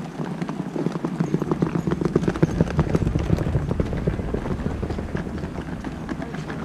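Wheeled suitcase rattling over cobblestone paving as it is pulled along: a fast, uneven clatter, loudest a couple of seconds in.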